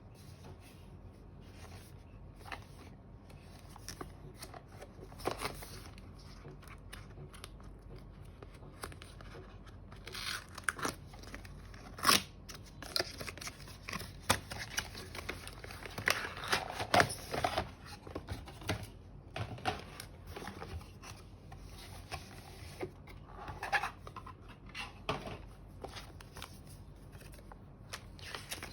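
Packaging being handled and opened by hand: rustling and tearing of wrapping, with scattered small clicks and knocks, busiest in the middle.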